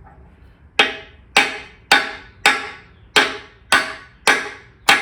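Hammer striking a 1-7/16 inch socket used as a seal driver, tapping a new PTO seal into its bore in the transmission housing. Eight steady blows, a bit under two a second, each a sharp knock with a short ring, starting about a second in.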